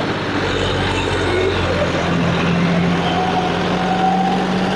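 Diesel tractor engine running steadily under load while pulling a disc harrow, its note rising slightly partway through.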